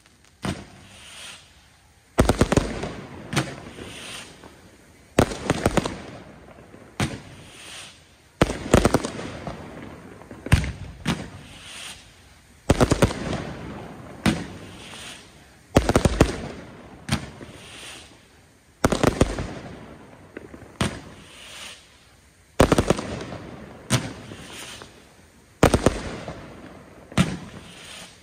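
Aerial fireworks shells bursting in a long series of sharp bangs, one every second or two and sometimes in quick pairs, each echoing away before the next. The bangs begin about two seconds in.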